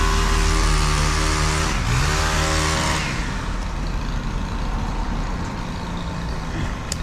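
A heavy engine revs up twice, once at the start and again about two seconds in, with a loud rushing noise that drops away about three seconds in; the engine then runs on at a lower steady level.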